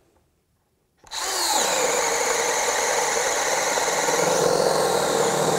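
Craftsman V20 brushless RP 1/2-inch hammer drill driver, in high gear, boring a 1.25-inch spade bit into a wooden board. It starts about a second in and runs steadily under load. On its small 2 Ah battery the motor slows noticeably as it cuts, without stalling.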